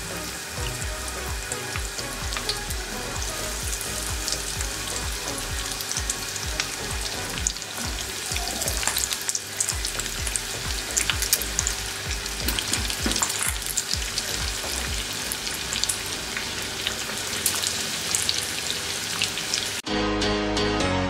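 Batter-coated chicken wings deep-frying in hot oil in a frying pan: a steady sizzle full of fine crackles and pops. Music cuts in abruptly about a second before the end.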